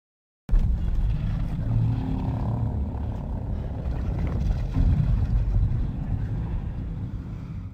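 A deep, heavy rumbling sound effect that starts suddenly about half a second in, runs on with its weight in the low end, and slowly fades away near the end.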